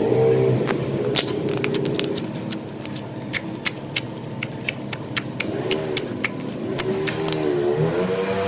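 Slime being squeezed and poked, making a quick, irregular run of sharp clicks and pops, with a wavering tone underneath near the start and again in the last few seconds.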